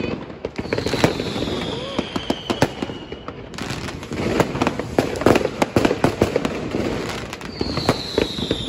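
Fireworks going off in a dense, irregular scatter of bangs and crackles. Two long whistles fall slowly in pitch, one starting about a second in and another near the end.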